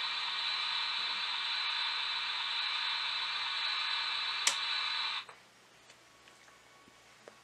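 Steady hiss from the onboard sound of an HO-scale Reading T-1 model steam locomotive standing still. A sharp click comes about four and a half seconds in, and the hiss cuts off suddenly half a second later, leaving near silence with a few faint clicks.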